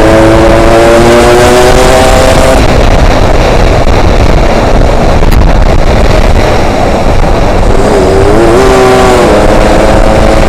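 Yamaha RX-King's 135 cc two-stroke single running on the move under heavy wind noise on the microphone. Its note climbs steadily over the first couple of seconds, is buried in wind rush for several seconds, and comes back near the end.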